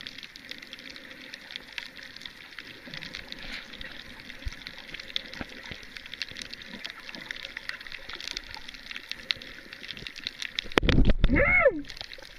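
Underwater ambience picked up by a submerged camera over a reef: a steady hiss dotted with many faint, irregular crackles and clicks. Near the end comes a loud low rumble with a short pitched sound that rises and falls.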